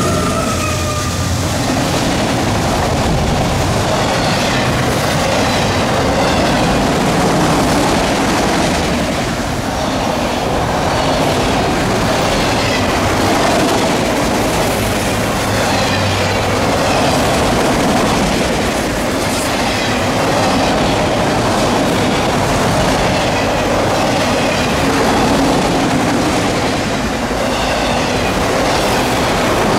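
A long freight train of loaded autorack cars rolling past at speed, a steady rumble of steel wheels on rail with a clickety-clack and faint, intermittent wheel squeal. A whine from the trailing diesel locomotive fades out about a second in.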